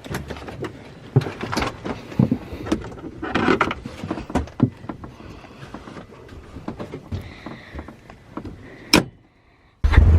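Irregular knocks, clicks and rattles of people handling the door and cab of a Polaris RZR Turbo side-by-side. Near the end, after a brief quiet gap, a loud steady engine rumble starts.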